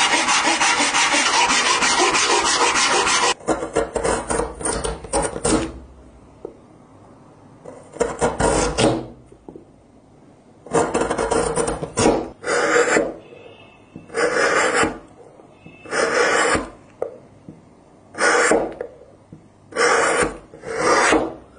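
Hand tools cutting pale wood. It opens with about three seconds of fast, continuous scraping and cutting, then a quick run of short strokes. After that a flat chisel pares down through the block in about eight separate strokes, each under a second, shaving off curls of wood.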